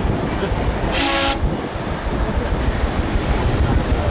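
A short horn toot about a second in, with a hiss and several pitches at once, over a steady low rumble of wind and water.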